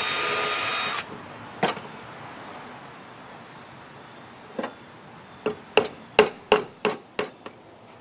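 Power drill whirring for about a second as it drives a screw into the wooden birdhouse, then a single knock, and near the end a quick run of about eight sharp knocks on wood.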